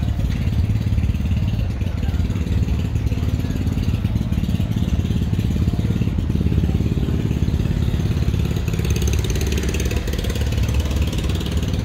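An engine idling steadily: a constant low, pulsing drone.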